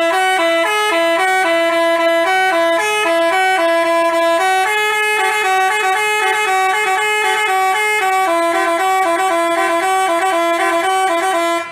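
Basuri telolet musical bus horn playing a tune. It is a fast run of short stepped notes with two tones sounding together, and it starts and cuts off abruptly.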